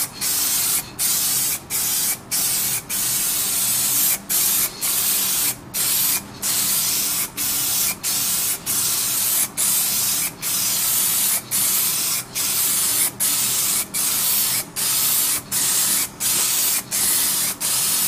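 Aerosol spray can of clear coat hissing in short sprays of about half a second each, with brief breaks between them, as the nozzle is pressed and released over and over.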